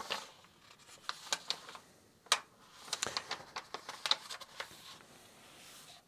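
Paper pages of a book being turned by hand: a series of dry rustles and flicks, with the sharpest page snap about two seconds in and a quick run of rustling from about three to four and a half seconds.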